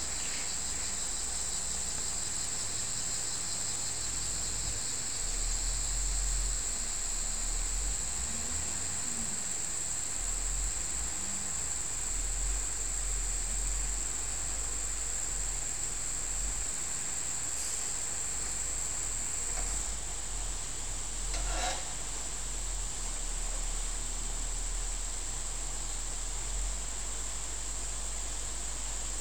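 Insects shrilling in one steady, unbroken high-pitched tone, over a continuous low rumble.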